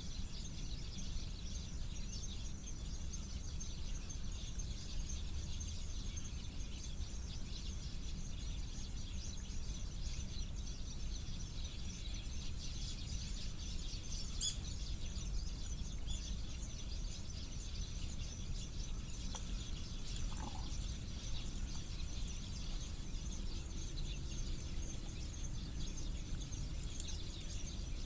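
Outdoor ambience: a steady low rumble with many small high bird chirps throughout, a brief sharp click about halfway through, and a short gliding call a little later.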